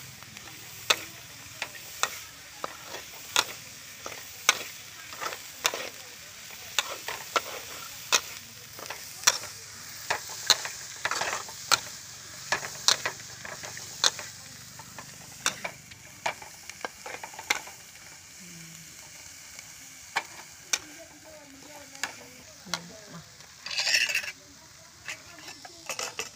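Metal spatula scraping and clacking against a steel wok as small shrimp are stir-fried, over a steady sizzle. The clacks come about once or twice a second, thinning out in the second half, with one brief louder rasp near the end.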